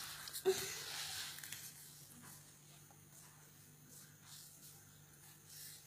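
A crying young boy's faint sobbing breaths, with a short whimper about half a second in. After about two seconds it falls to near quiet with a low steady hum.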